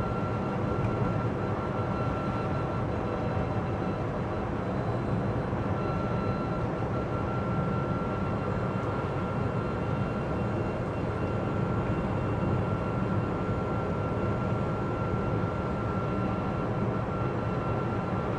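Cabin noise of a Citroen Ami electric city car driving at about 28 mph on wet roads in heavy rain: steady road and tyre noise with the heater fan running, and a thin steady whine.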